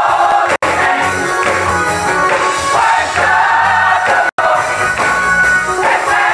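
Women's choir singing a gospel song over sustained low instrumental notes. The audio cuts out for an instant twice.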